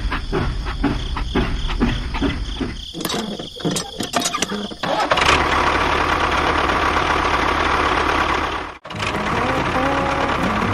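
An engine cranking and starting with rapid chugging, about four to five beats a second. From about five seconds in it settles into a steady, dense running noise, which cuts off abruptly near nine seconds and then resumes.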